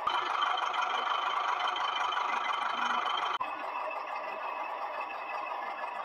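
Small electric motor and plastic gears of a toy construction truck whirring steadily as it drives across sand. The sound cuts off abruptly about three and a half seconds in and carries on slightly quieter.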